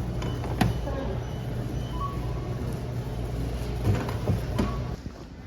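Car driving, heard from inside the cabin: a steady low road and engine drone with a few short knocks and rattles. The drone cuts off suddenly about five seconds in.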